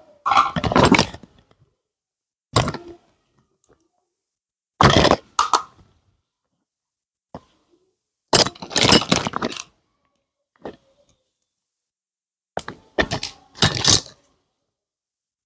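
Small toy pieces and their packaging being handled, in about five short bursts of clicking, cracking and knocking spaced a couple of seconds apart.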